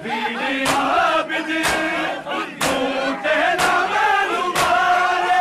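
Crowd of Shia mourners chanting a noha in unison, with a sharp collective chest-beat (matam) about once a second.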